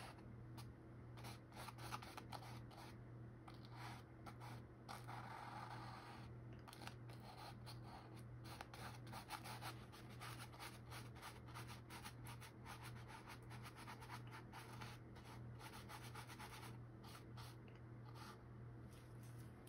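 Paintbrush stroking and dabbing on a canvas: a faint, irregular run of many short brush strokes, a few each second, over a steady low hum.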